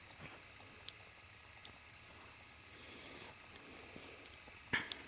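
Steady high-pitched chorus of crickets, with a single short sharp click near the end.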